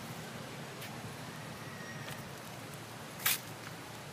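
Dry leaves rustling and crackling on the ground as macaques shift about, with one sharp, loud crackle about three seconds in, over a steady background hiss.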